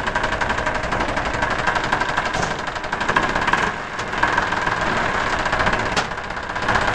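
Tractor engine sound running steadily with a fast, even knocking rattle, and a sharp click about six seconds in.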